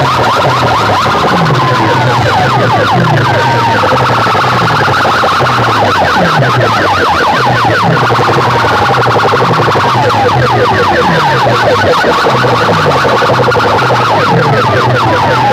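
Very loud siren-like competition track blasting from stacks of horn loudspeakers: fast rising and falling wailing sweeps over a bass pulse that drops in pitch over and over, about one and a half times a second.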